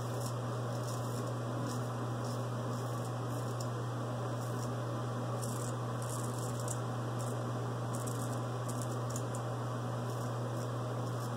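Böker straight razor scraping through lathered stubble on the upper lip in short, irregular strokes, over a steady low hum.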